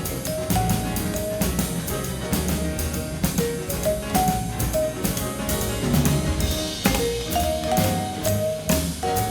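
Background music: a drum kit keeping a steady beat under a line of short pitched notes.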